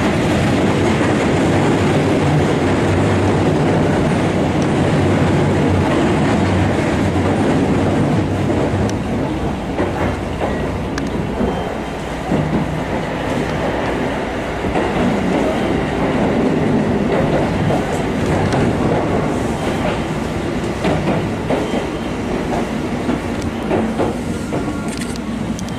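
Keisei 3000 series electric commuter train heard from inside the car, a steady rumble of wheels on rail with scattered rail-joint clicks. It eases off in the second half as the train draws into a station.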